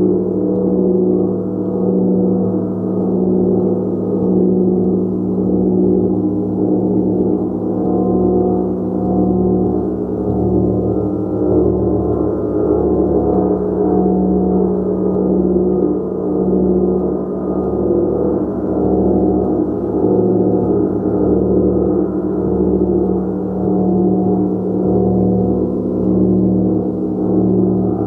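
A gong played continuously in a sustained wash: dense overlapping ringing tones with a strong low hum, the volume swelling and easing about every two seconds as it is kept going without a break.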